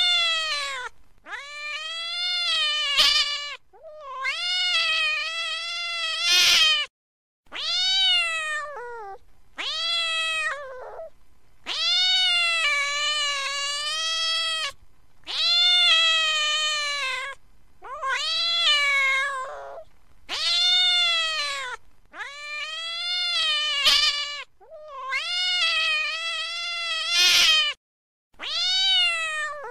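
A cat giving a long series of drawn-out, angry meows, one after another with short pauses between, each call rising and then falling in pitch.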